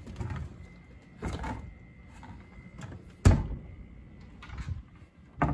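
Wooden cabinet door of a hotel-room mini fridge compartment being handled: a soft knock a little over a second in, a sharp knock about three seconds in, the loudest, and another knock just before the end.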